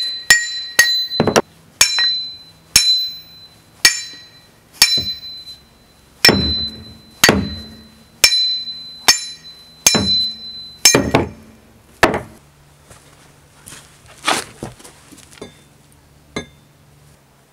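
Old steel axe head struck again and again, about once a second, each blow leaving a high ringing note, as the old handle is driven out of the eye. The blows thin out to a few fainter knocks near the end.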